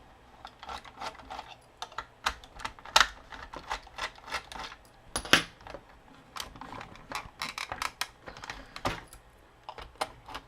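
Irregular clicks and clacks of hard plastic action-figure parts being handled and pushed together, with two sharper knocks about three and five seconds in.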